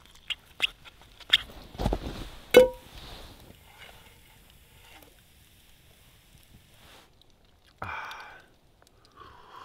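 Clicks and knocks of metal camp cookware being handled, then a sharp metal clank that rings briefly, a metal frying pan set down or struck over the fire. A short sip near the end.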